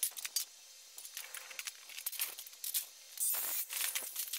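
Cut strips of thin sheet aluminum being tossed and shuffled on a plywood board: a few sharp metallic clinks at the start, scattered light clatter, then a louder scraping, rattling stretch of metal on metal and wood about three seconds in.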